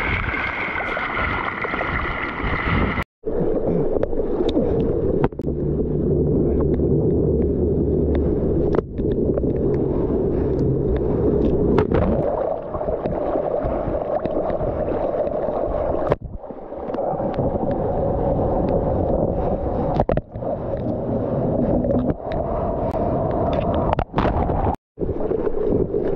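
Water rushing and splashing around a surfboard riding a wave, with wind buffeting the action camera's microphone. The sound cuts out completely for a moment about three seconds in and again near the end.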